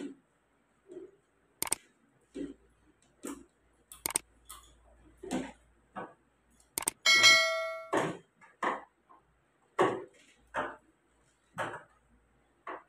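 A metal tool knocking and clinking against a washing machine's plastic tub: a dozen or so short sharp knocks, roughly one a second. About seven seconds in there is one loud metallic clang that rings for about a second.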